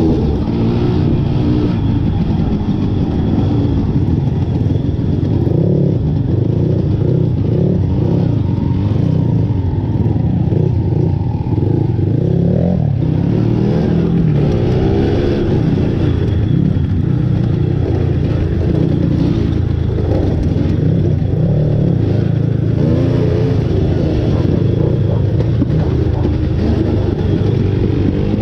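Motorcycle engine running under way, its pitch rising and falling again and again as the rider opens and closes the throttle.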